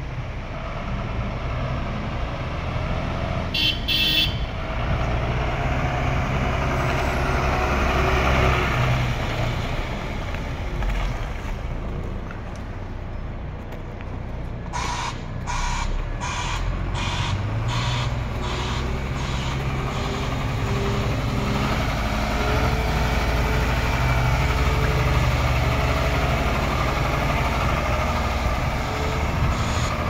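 Iveco Stralis 310 truck's six-cylinder Cursor 8 diesel engine running at low speed while it is driven and manoeuvred, with a brief hiss of air brakes about four seconds in. Partway through, a run of beeps at about two a second.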